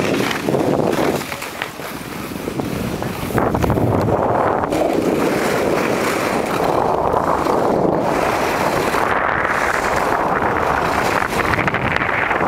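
Wind rushing over the microphone of a camera carried by a fast-moving skier, mixed with the skis running on packed snow. It comes in uneven gusts at first, then grows louder and holds steady about three and a half seconds in as the skier picks up speed.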